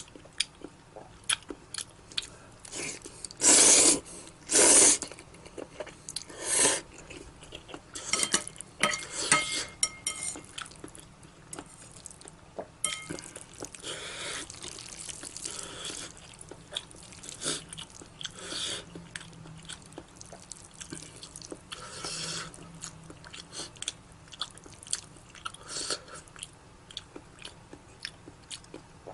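A person eating chewy spicy cold noodles close to the microphone. Wet mouth clicks and chewing run throughout, broken by a few louder noisy bursts about a second long, the loudest about four and five seconds in.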